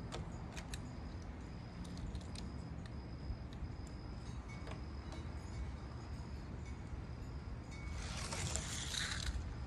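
Die-cast Hot Wheels cars running down a plastic track in a test race: a few faint clicks over wind rumble, then a loud hissing rattle for about a second and a half near the end.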